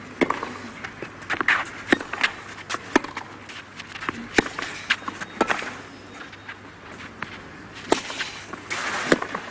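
Tennis ball struck by rackets and bouncing on the court during a rally: a series of sharp pops at irregular spacing, some louder than others.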